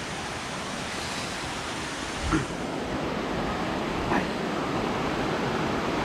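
Steady rushing of a stream's water cascading through a rock gorge, with two dull thumps, about two and four seconds in.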